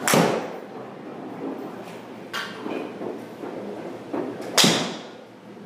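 A golf iron strikes a ball off a hitting mat just after the start, a sharp crack. A smaller click comes about two and a half seconds in, and a second sharp crack, as loud as the first, about four and a half seconds in.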